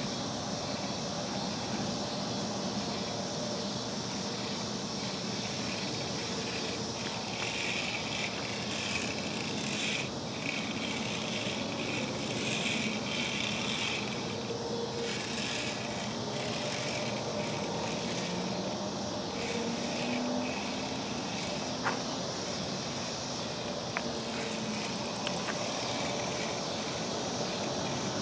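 Outdoor night ambience: a steady background hiss with a faint distant engine hum. Two sharp clicks sound near the end, about two seconds apart.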